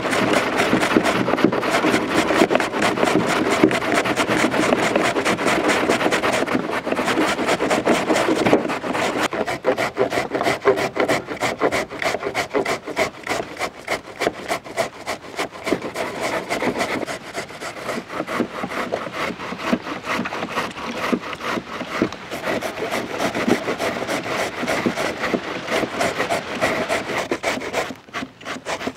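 Raw carrots being grated by hand on a stainless-steel box grater: a steady rasping scrape made of quick, repeated strokes.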